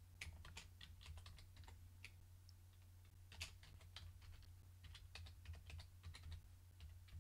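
Faint typing on a computer keyboard: irregular key clicks, a few a second, as a web address is keyed in, over a steady low electrical hum.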